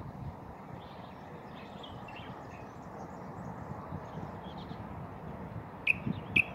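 Bulbul calling: faint scattered chirps, then two short, sharp calls close together near the end, over a steady low background noise.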